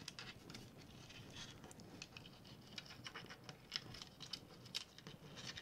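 Faint rustling and light irregular clicks of a bundle of wires and small plastic connectors being handled and pushed through a hole in a panel.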